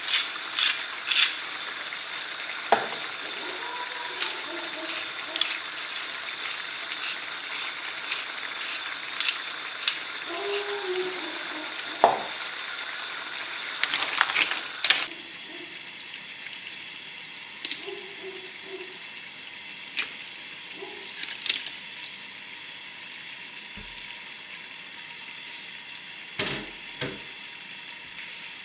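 Tomato and shellfish sauce sizzling in a frying pan. A pepper mill grinds in quick clicks for the first second or so, then a wooden spoon stirs the mussels and clams with scattered clicks of shell and knocks on the pan, busiest about halfway, after which the sizzle is quieter; a couple of low thumps come near the end.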